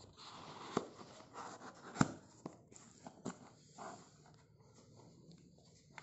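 Hands opening a shipping package: rustling with several sharp clicks and knocks, the loudest about two seconds in, then quieter handling.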